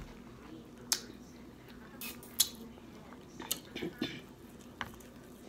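Wooden chopsticks clicking and scraping in a plastic container of pho noodle soup, with a few wet squishes of noodles and broth. The sharp clicks are scattered irregularly, about six in all.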